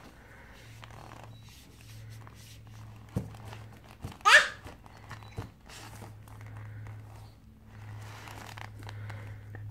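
Soft rustling and crinkling as a toddler paints, the brush working over a paper plate and a plastic bib shifting, over a low steady hum. About four seconds in comes a short, high squeal that falls in pitch, the loudest sound.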